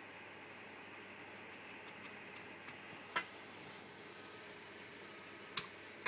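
Steady faint hiss with a few light clicks and taps; the two sharpest come about three and five and a half seconds in.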